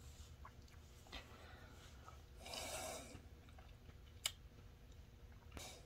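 Near silence broken by a pipe smoker's soft exhaled breath a little before halfway and a single sharp click later on.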